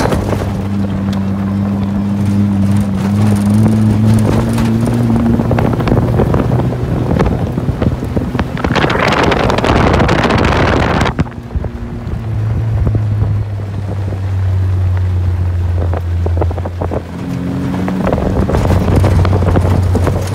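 A motor running steadily, its low hum shifting in pitch a few times, with wind buffeting the microphone; a loud rush of noise about nine seconds in, lasting a couple of seconds.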